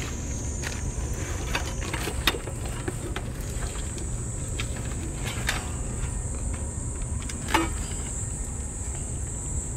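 A cat eating wet food from a metal plate: a few sharp clicks of chewing and of teeth and tongue on the dish, over a steady high insect drone and a low rumble.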